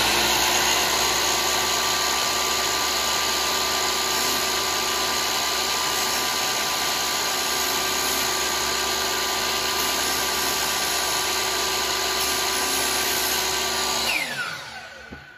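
Electric miter saw running steadily at full speed, its blade lowered onto plywood to score cut marks. About 14 seconds in the motor is switched off and winds down with a falling whine.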